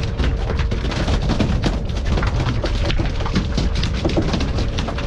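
Wind buffeting the action camera's microphone, a constant low rumble, with a quick scatter of small clicks and splashes over it and a faint steady tone underneath.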